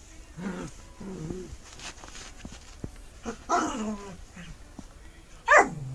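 A dog giving a series of short vocal calls, several sliding down in pitch, the loudest near the end.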